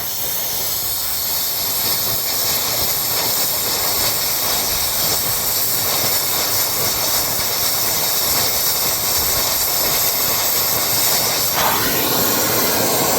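Acetylene torch flame burning with a steady, loud hiss.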